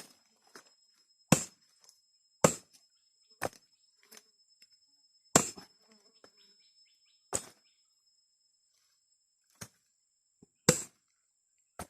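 A blade chopping at a hard woody plant stem: about eight sharp blows, irregularly one to two seconds apart. A steady high-pitched insect buzz runs behind them.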